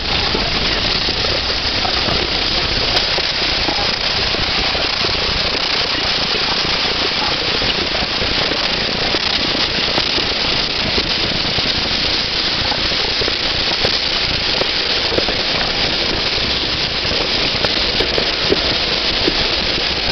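Passenger coaches rolling past close by: a steady loud rush of steel wheels on the rails with a dense, rapid clatter.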